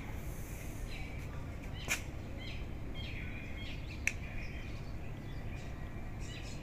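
Steady low road and engine rumble of a car cruising on a motorway, heard from inside the cabin. Short high chirps come and go over it, with two sharp clicks about two and four seconds in.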